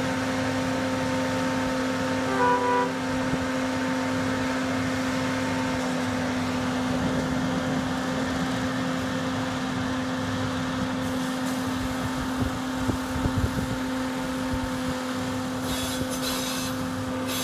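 Railroad maintenance-of-way machine's engine running steadily as the machine creeps along the track, with two short beeps about two and a half seconds in. A few low thuds come about three quarters of the way through.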